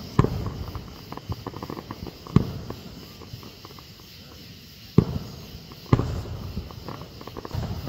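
Aerial fireworks shells bursting: four sharp booms, one just after the start, one about two seconds later and two more about five and six seconds in, with quicker, lighter crackling between them.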